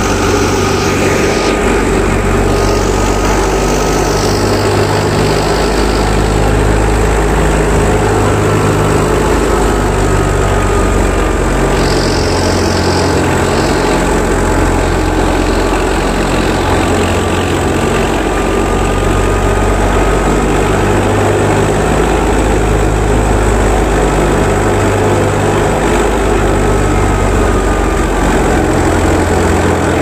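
Tractor-driven wheat thresher running at speed, its drum and belt-driven pulleys loaded with wheat straw: a loud, continuous mechanical drone with a low hum that swells and eases every few seconds.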